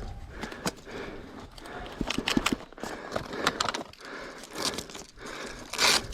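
Footsteps and rustling over rough ground, with scattered sharp clicks and snaps. The loudest snap comes near the end.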